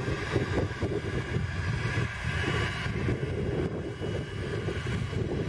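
Cessna Citation XLS+ business jet's twin Pratt & Whitney Canada PW545C turbofans idling, a steady high whine made of several held tones, with wind buffeting the microphone underneath.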